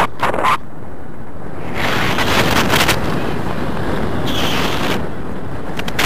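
Airflow buffeting an action camera's microphone during a tandem paraglider flight: a loud, rushing wind noise that eases for about a second early on and then grows stronger again.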